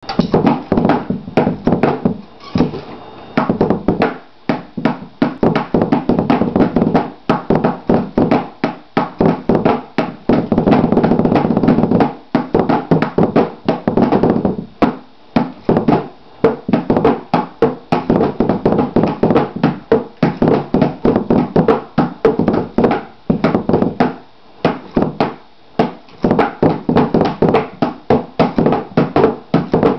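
An old double bass drum pedal's beaters striking a box in fast runs of rapid strokes, with short pauses between the runs.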